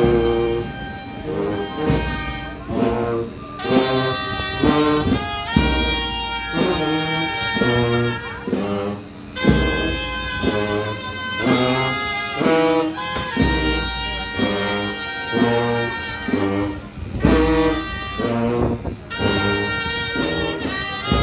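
Brass band with sousaphone playing a slow processional march: sustained chords from the horns over low bass notes roughly every two seconds.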